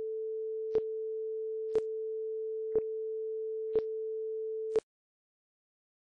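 Film-leader countdown sound effect: a steady mid-pitched tone with a short click once a second, five clicks in all, cutting off suddenly after the last one.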